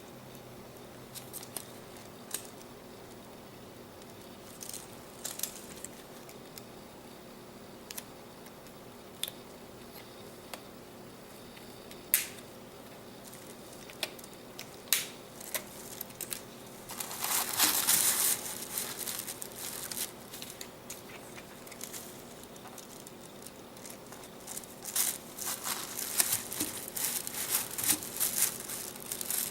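Unboxing handling of a keyboard's packaging: scattered clicks and taps, a longer crinkling rustle a little past halfway, and dense crinkling with clicks near the end.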